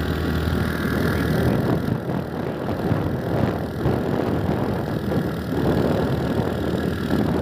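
A vehicle engine running steadily, with wind rushing over the microphone.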